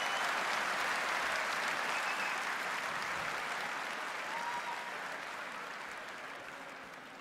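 Audience applauding, the applause dying away over the last couple of seconds.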